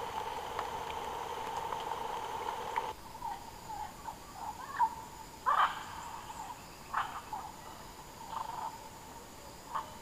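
Rainforest night chorus of calling animals, a steady pulsing trill, cuts off suddenly about three seconds in. A quieter daytime forest ambience follows: a thin high insect drone with a string of short chirping calls, the loudest a little past halfway.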